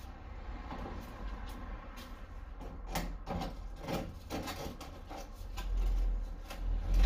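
Hand snips (tin snips) biting into the old sheet steel of a Mk2 Ford Escort's front wing: a run of irregular metallic crunches and clicks as the blades close. A low rumble builds near the end.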